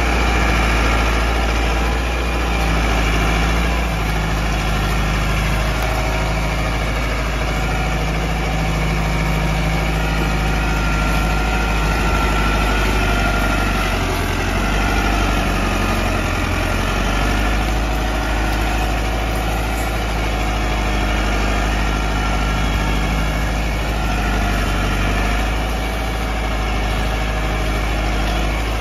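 Massey Ferguson 385's four-cylinder diesel engine running steadily at a low, even speed, with the tractor hitched to a loaded sugarcane trolley.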